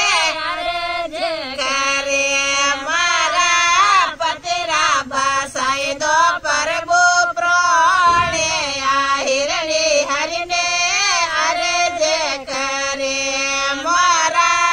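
Women's voices singing a Marwari devotional bhajan together in unison: long sung phrases with a wavering, ornamented melody and short breaks for breath.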